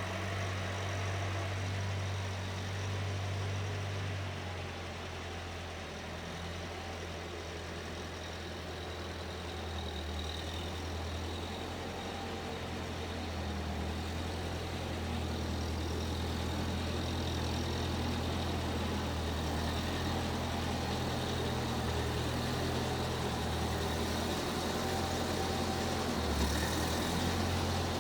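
Case 1530 Uni-Loader skid steer engine running steadily, easing off a little about four seconds in and growing louder again over the second half.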